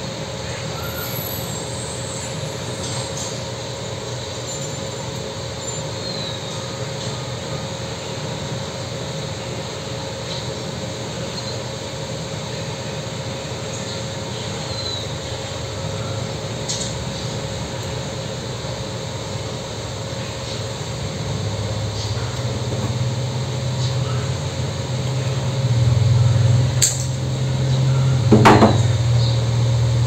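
Steady low hum of background noise that swells into a louder low rumble over the last third. A few sharp clicks sound near the end.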